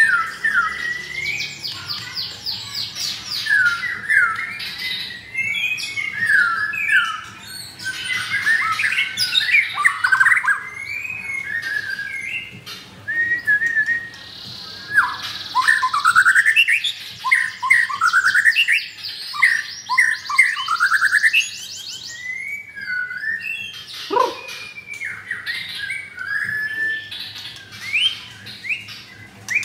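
White-rumped shamas (murai batu) singing a long, varied song of rapid trills, rising and falling whistles and chattering phrases, with brief pauses between bursts. Late on there is one long whistle sliding steeply down in pitch.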